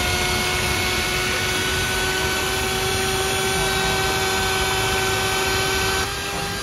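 Electric stand mixer running at a steady speed, its motor giving a constant whine while the beater churns eggs in a steel bowl, whipping them into a froth for a fluffy omelette. The sound steps down slightly about six seconds in.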